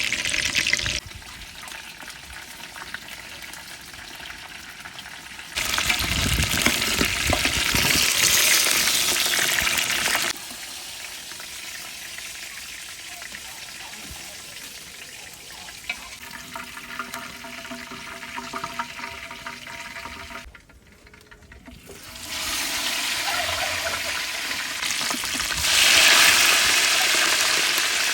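Water running and pouring in several spells of a few seconds each, with quieter handling in between.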